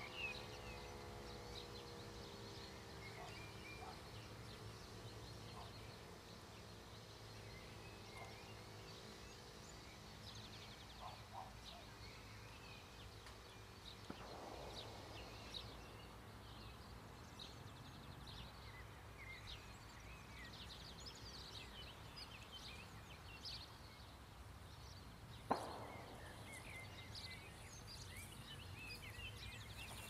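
Quiet rural ambience with scattered faint bird chirps over a low steady rumble. The last of a Siemens E57 siren's falling run-down fades out at the very start, and there is one sharp click near the end.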